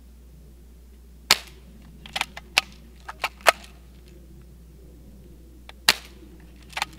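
Daisy Grizzly BB gun firing: a sharp pop about a second in, a quick run of clicks and cracks over the next two seconds, and another sharp pop near six seconds.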